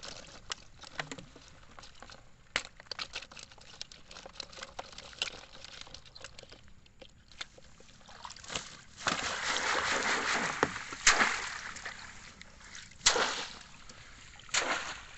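Shallow floodwater sloshing and splashing as a wire-mesh fish trap and a net basket of fish are handled in it. Scattered small clicks and rattles, then about nine seconds in a two-second rush of pouring, sloshing water, followed by a few sharp splashes.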